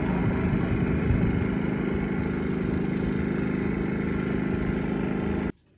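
Engine idling steadily, with an even hum and no change in speed; it cuts off suddenly near the end.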